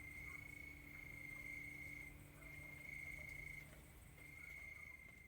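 Cricket trilling: one high, steady trill broken into runs of about a second with short pauses.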